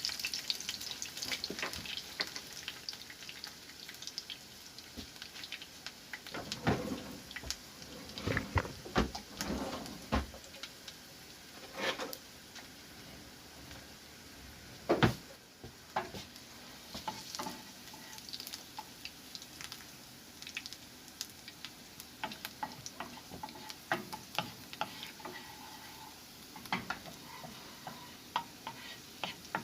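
Garlic sizzling in hot olive oil in a pot, stirred with a utensil that clicks and knocks against the pot now and then. A cluster of louder knocks comes between about 6 and 16 seconds in.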